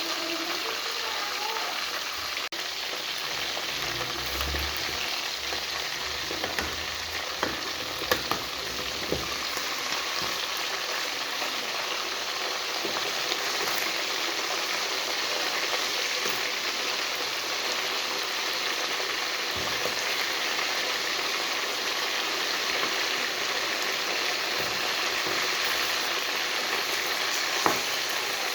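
Food frying in a pan, with a steady sizzle and a few sharp clicks of a utensil against the pan.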